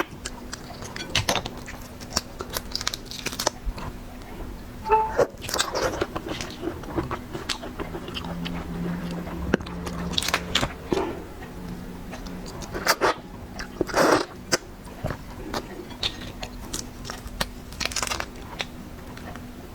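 Close-up eating sounds: irregular crunchy bites and chewing of seafood, with the louder crunches coming about five, ten, thirteen to fourteen and eighteen seconds in.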